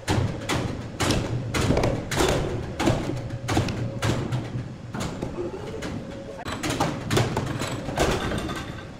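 Irregular knocks and thumps, roughly one or two a second, over the steady hum of sawmill machinery.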